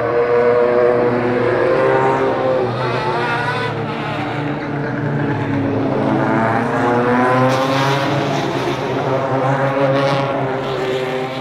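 Super TC 2000 touring cars driving past one after another, their engines rising and falling in pitch with each pass.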